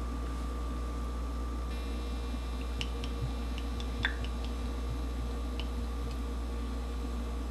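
Olive oil poured from a glass bottle into a saucepan: a scatter of faint soft ticks and drips, with one slightly louder glug about four seconds in, over a steady low electrical hum.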